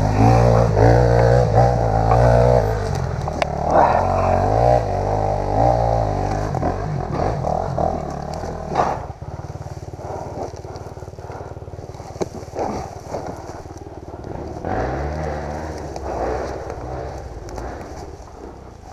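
Honda CRF250F single-cylinder four-stroke dirt bike engine revving up and down in bursts, then dropping suddenly to a quieter run about halfway through, with another brief rev about three-quarters of the way in.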